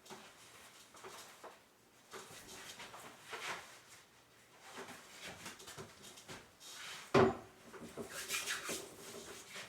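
Scattered light knocks and rubbing, with one loud knock about seven seconds in.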